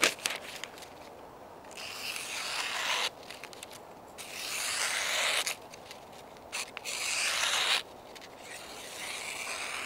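Schnitzel DU knife's Scandi-ground stainless blade slicing through a held sheet of newspaper in four long strokes, each a second or so of rasping hiss, shaving the paper into thin strips. This is a sharpness test, and the edge cuts cleanly.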